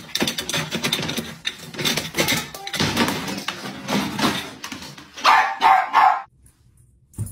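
Dog barking and yipping with knocking and rattling, then about three loud yips a little after five seconds in.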